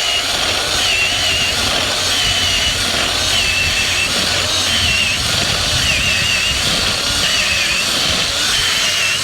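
Half-inch drill spinning an earth auger bit, boring a fence-post hole into the ground. A steady motor whine that wavers a little in pitch as the bit takes load.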